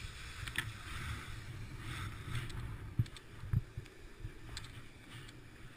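Wind buffeting the microphone of a kite buggy running fast over sand, a gusty low rumble, with two sharp knocks about three seconds in.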